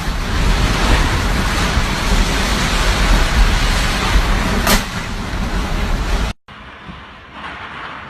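Typhoon Hagibis's wind and heavy rain, a loud steady rush with deep wind buffeting on the microphone. About six seconds in it cuts abruptly to a much quieter, steady hiss.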